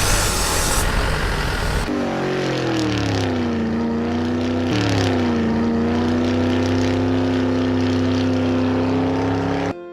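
Vehicle engine sound effect: a noisy rumble for about two seconds, then an engine note that drops in pitch twice and settles into a steady run, cutting off abruptly near the end.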